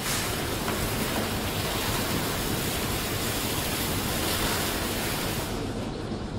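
Steady, loud hissing rush of an extinguishing jet sprayed onto the fire at the foot of the test wall, putting it out. It starts suddenly and cuts off about five and a half seconds in.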